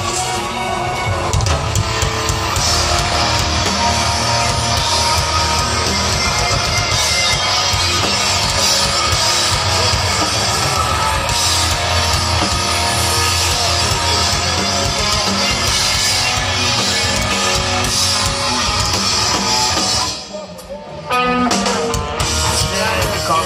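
Live rock band playing loud through the festival PA, electric guitars and drums, heard from the crowd. About twenty seconds in, the band drops out almost entirely for about a second, then crashes back in.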